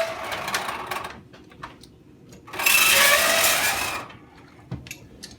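Rattling, scraping handling noise as the LED lighting wiring inside a Wurlitzer jukebox is disconnected. It is loudest for about a second and a half in the middle, with a few sharp clicks around it.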